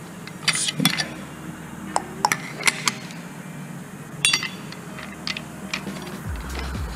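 Scattered light metallic clicks and clinks as a diamond cutoff wheel is fitted onto an angle grinder's spindle and its flange nut is turned down by hand. Low throbbing background music comes in near the end.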